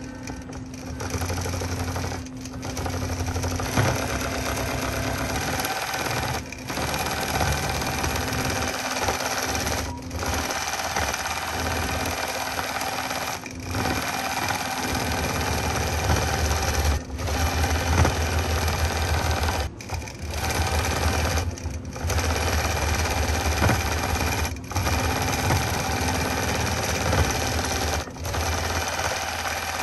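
Computer-guided longarm quilting machine stitching straight lines across a quilt, its needle and motor running steadily and stopping briefly about every two to four seconds.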